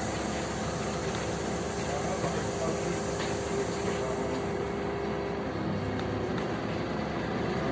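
LiAZ-5292.65 city bus's diesel engine idling steadily while the bus stands, heard from inside the passenger cabin, with a high hiss that fades out about five seconds in.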